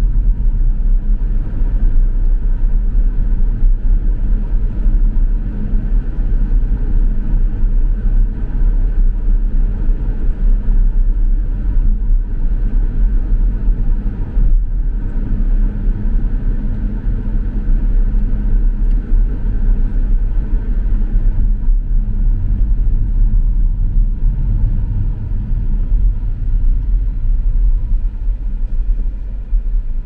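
A car being driven: a steady low rumble of engine and road noise that keeps up without a break.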